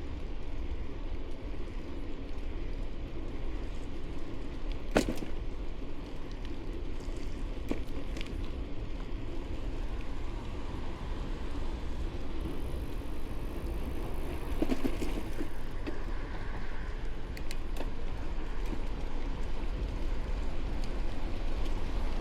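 1994 GT Timberline mountain bike being ridden: a steady rumble of the tyres rolling, with a sharp click about five seconds in.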